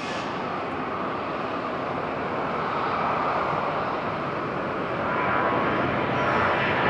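Jet airliner's engines running as a steady noise that grows gradually louder as the aircraft draws nearer.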